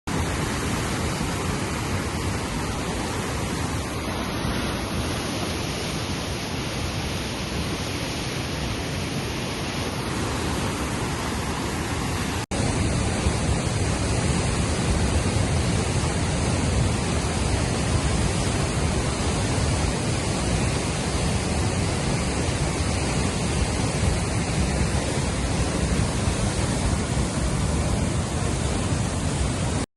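Swollen Beas River in flood, its fast floodwater rushing in a steady roar of water noise. About twelve seconds in it cuts abruptly to a louder, deeper rush.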